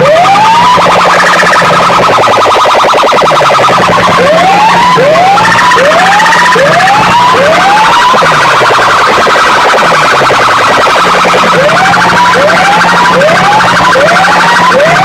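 Siren-like alarm effect played very loud through large loudspeaker boxes: groups of quick rising whoops, three near the start, five between about four and eight seconds, and six more near the end, alternating with a buzzing, pulsing tone over a steady low hum.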